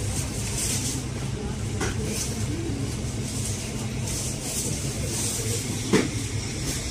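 Supermarket room noise: a steady low hum, with a faint click about two seconds in and a sharper knock about six seconds in.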